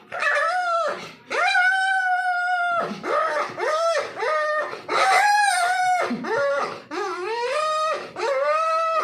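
A series of high, drawn-out puppy-like whines and howls: about eight cries, each bending up and then down in pitch, the longest held for about a second and a half.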